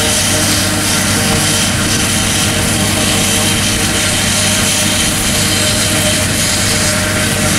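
Tractor-drawn New Holland FP230 forage harvester chopping standing corn for silage: a steady, loud drone of engine hum and whirring machinery over a constant rushing noise.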